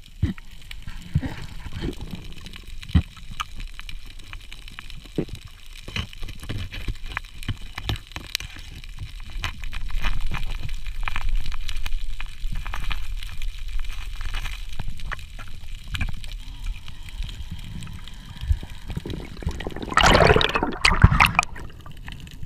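Underwater water noise picked up by a submerged camera: a low rumble with scattered clicks and knocks, and a louder rush of water noise about twenty seconds in.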